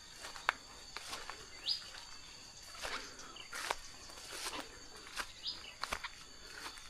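Footsteps of someone walking, over a steady high-pitched insect drone. A bird gives a short call that rises in pitch, twice, about four seconds apart.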